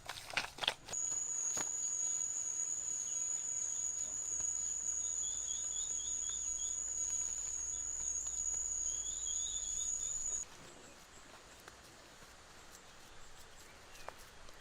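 Steady high-pitched insect trill, with two short runs of quick chirps laid over it. It cuts off suddenly about ten seconds in, leaving faint background noise.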